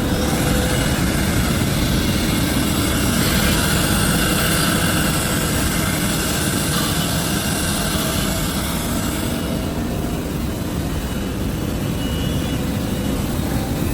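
Holztek HT-3000-S3R6 three-axis CNC router running steadily, its spindle cutting wood with a dense rushing noise. The hiss gets brighter for several seconds in the middle, then eases.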